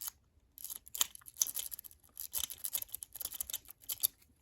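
Lock-pick rake scraping and clicking rapidly in a Master Lock padlock's keyway: a MultiPick four-peak rake worked in quick back-and-forth strokes, coming in several short bursts with brief pauses between them.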